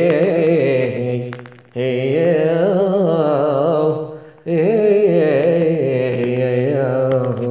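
A man singing a traditional Yemeni tawshih unaccompanied, drawing out long melismatic notes with wavering ornaments. The voice breaks off twice for a breath, about a second and a half in and again about four seconds in.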